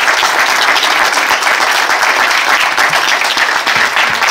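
A small crowd applauding with dense, steady hand clapping.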